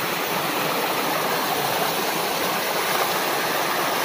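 Steady rush of water from a small waterfall spilling over rocks into a stream.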